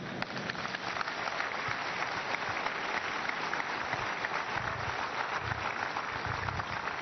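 A church congregation applauding: many hands clapping steadily.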